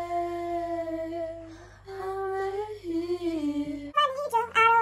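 A girl's voice singing long drawn-out notes without words: one note held steady, then a second line that slides downward. Near the end it cuts to a livelier sung passage with quick pitch changes over a steady low hum.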